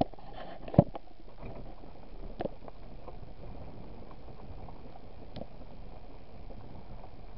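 Steady rumble of a vehicle rolling slowly along a gravel road, heard from inside the cab, with a few sharp knocks, the loudest about a second in.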